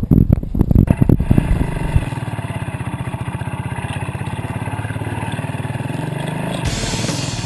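Motorcycle heard from on board while riding a dirt road: clattering knocks for about the first second, then the engine running at a steady, even pulse. A hiss rises near the end.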